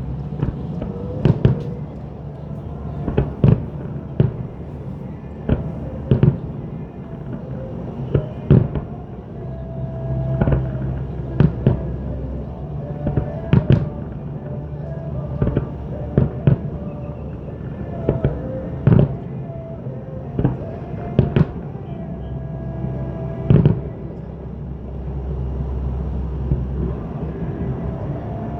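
Aerial fireworks shells bursting one after another, a sharp boom every second or two, with music playing underneath.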